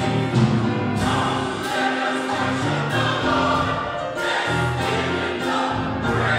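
Church choir singing a gospel song in full voice, with a regular beat of short sharp hits under the voices.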